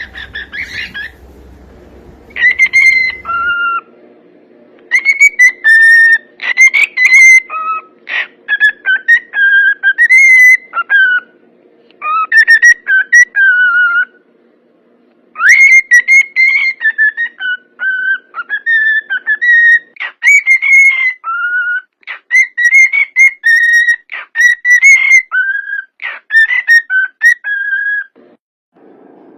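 Cockatiel whistling a song: a long run of clear whistled phrases with notes gliding up and down, broken by short pauses.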